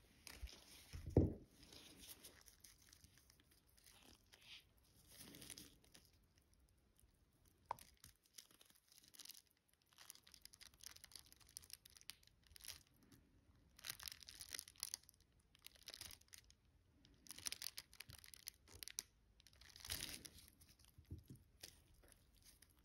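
Faint rustling and scraping of small handling noises as the hour hand is fitted onto a watch dial, with a soft thump about a second in and a sharp click about eight seconds in.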